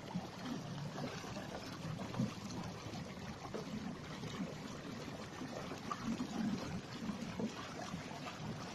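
Water splashing and trickling along the hull of a Hobie pedal kayak under way: a steady wash of many small splashes from the bow wake.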